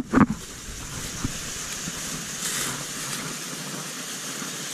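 Small waterfall running over rock into a pool, a steady rush of water, with a brief thud just after the start.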